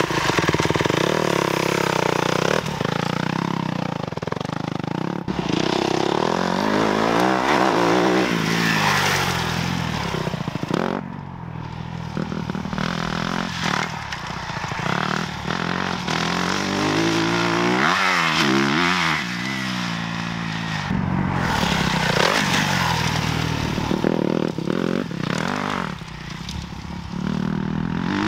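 Motocross bike engine revving hard and easing off again and again as it rides the track, its pitch climbing with each burst of throttle and dropping back on shifts and braking.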